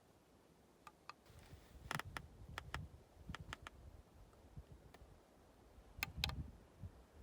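A string of sharp metallic clicks and low handling knocks from a .22 LR rifle being handled between shots: two clicks about a second in, a quick cluster over the next couple of seconds, then two more near the end.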